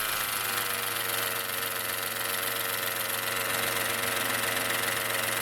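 Peugeot 208 1.2 three-cylinder engine idling steadily with both accessory belts removed, its revs settling just at the start. The mechanical noise from the front of the engine persists without the belts, which rules out the accessory belts and their bearings; the mechanic traces it to the timing-belt cover.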